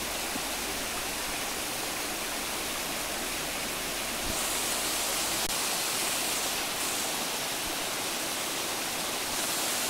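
Steady rushing of water from a stream and waterfall, with no other sound standing out. It grows a little louder and brighter for a few seconds in the middle.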